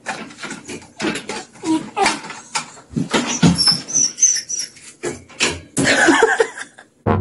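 A small dog whining and giving short high squeaks over a run of quick clattering knocks. It stops abruptly near the end.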